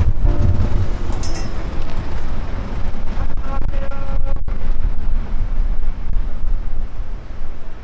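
Wind rumbling on the microphone over street traffic noise, heavy and uneven, with a few brief faint tones a few seconds in.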